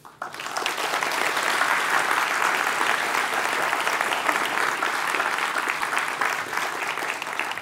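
Audience applauding: many hands clapping, building up within the first second and then holding steady.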